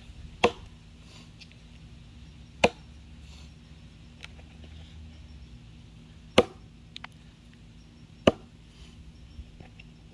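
Council Tool Boy's axe, a Dayton-pattern 2.25 lb head on a 28-inch handle, chopping into a box elder log: four sharp chops at uneven intervals, with a few faint ticks between.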